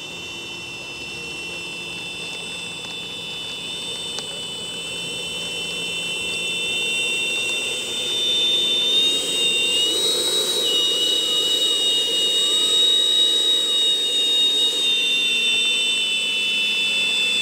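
Electric ducted fan of a Freewing L-39 RC jet whining steadily as the model taxis on the ground. It grows louder through the middle, with a brief step up in pitch about ten seconds in.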